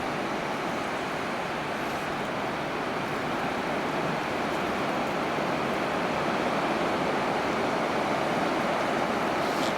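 Ocean surf breaking on a beach from leftover typhoon swell: a steady wash of waves that swells slightly louder through the second half.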